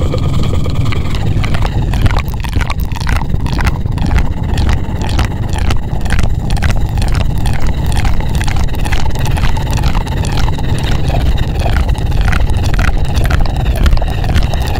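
ASMR 'helicopter' trigger worked close on the microphone: a loud, steady low rumble with a fast, even pulsing of strokes on top, like rotor blades.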